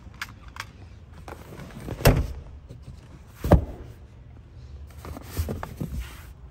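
Two dull thumps about a second and a half apart, then a few lighter clicks and rustles near the end: handling knocks inside a car's rear cabin.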